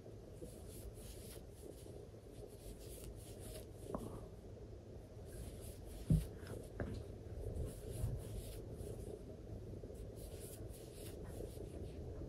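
Faint rustling and scraping of yarn drawn through loops by a crochet hook as half double crochet stitches are worked. A sharp low bump about six seconds in, with softer ones just after, is the loudest thing.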